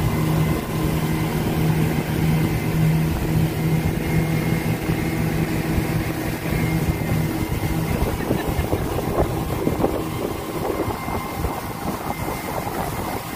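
Speedboat engine running steadily at speed, with water and wind noise rushing past the open boat. The engine hum drops back after about seven seconds, leaving mostly rough water and wind noise.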